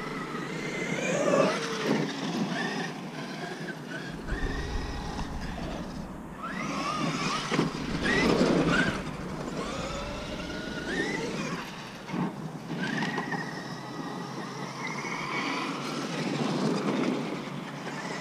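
Traxxas X-Maxx 8S RC monster truck being driven hard: its brushless electric motor whines, rising and falling in pitch as it speeds up and slows again and again, over a rush of tyre and drivetrain noise. A low rumble joins about four seconds in.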